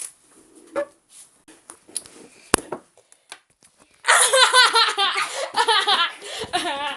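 A child laughing loudly in quick repeated bursts for the last three seconds. Before that there are a few faint ticks and rustles and one sharp click about two and a half seconds in.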